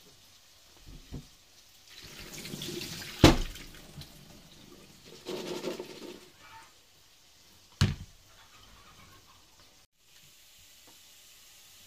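Tap water running in two short spells over diced potatoes in a plastic colander at a steel sink, with two sharp knocks, the louder one about three seconds in.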